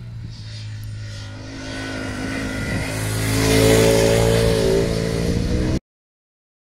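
Ducati Streetfighter V4S's V4 engine running as the bike approaches, growing louder to a peak about four seconds in, then cutting off abruptly near the end.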